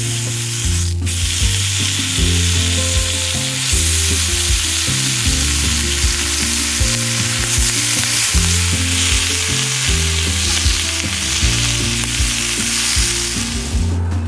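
Food frying in a pan: a steady, loud sizzle that stops near the end, over background music with a bass line.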